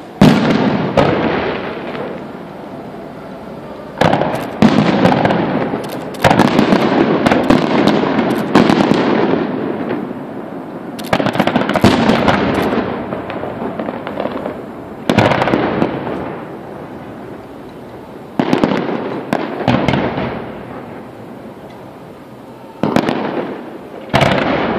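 Fireworks display: aerial shells bursting with sharp bangs every few seconds, often two or three in quick succession, each dying away over a second or two.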